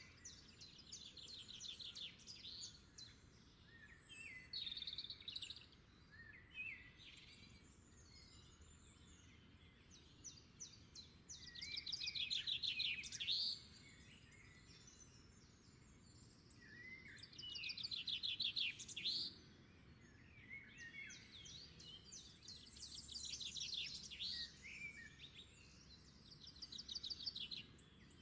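A songbird singing in repeated bouts of fast trills and chirps, each a second or two long and a few seconds apart, over a faint steady background hum.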